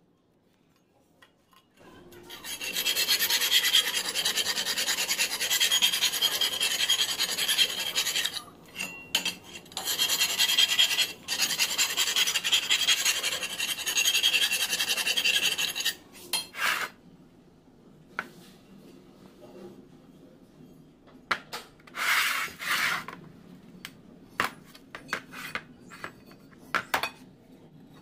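Flat steel file rasping back and forth through a rough-edged slot in a rectangular steel tube clamped in a bench vise, smoothing the edges of the slot. The filing strokes run steadily for about fourteen seconds with a few short breaks, then give way to scattered short scrapes and light metal clinks.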